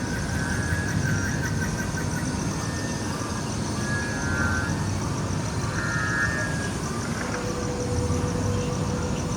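Steady low engine rumble from the TIE Echelon ship's idling-engine sound effect, played through the attraction's speakers, with short high electronic tones coming and going and a steady hum joining near the end.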